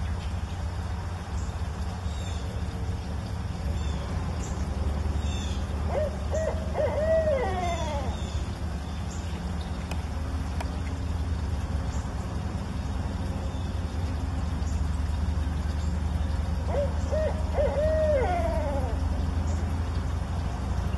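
Barred owls hooting: two short series of hoots, about six seconds in and again about seventeen seconds in, each a few short notes and then a longer note that falls away at the end.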